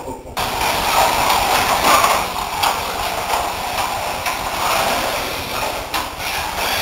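Carrera Servo slot cars running on plastic track: small electric motors whirring and the cars rattling along the lanes, rising and falling in loudness.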